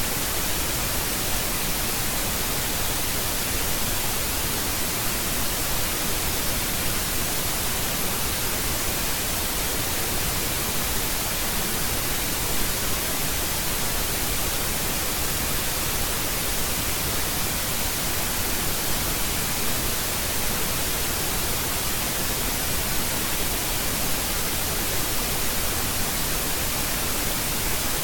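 Steady static hiss with no other sound.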